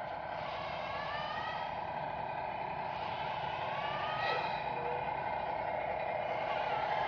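Radio-controlled model semi-truck with trailer driving, with a steady hum and a whine that rises in pitch several times, every second or two.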